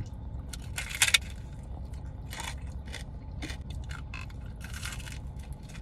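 Crisp chicharrón (fried pork rind) being chewed close to the microphone: irregular crunches, the loudest about a second in, over a steady low hum.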